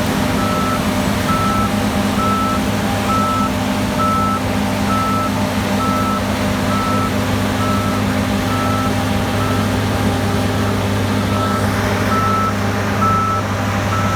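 Heavy farm machinery engine running steadily, with an electronic warning beeper sounding about twice a second.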